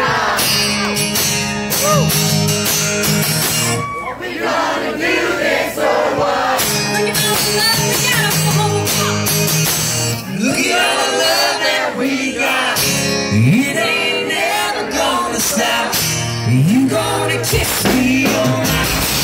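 Live country band playing, with a man and a woman singing over acoustic guitar, electric guitar and drums, and a few short shouts in the second half.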